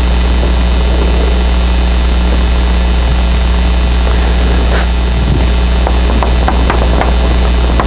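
A loud, steady low electrical hum runs under everything. Over it, a blackboard is wiped with an eraser, and then from about five seconds in a stick of chalk taps and scratches in a quick run of short ticks as writing starts on the board.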